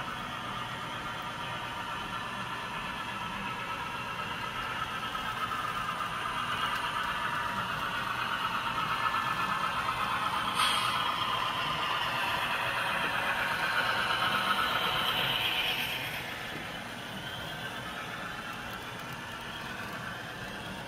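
Model BNSF Dash-9 diesel locomotive running past with a train of double-stack container cars, making a steady mechanical running sound with a high hum. It grows louder as the locomotive nears, with a single click about halfway, then falls off sharply a few seconds later once the locomotive has passed.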